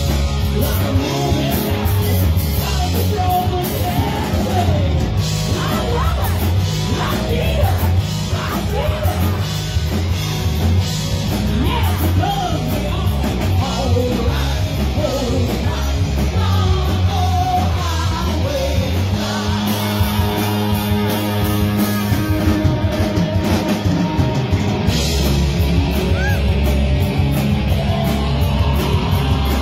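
Live rock band playing loudly: a woman's lead vocal over electric guitar, bass guitar and a drum kit.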